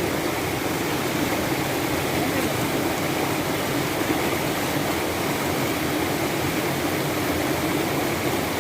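Steady, loud rushing of a waterfall.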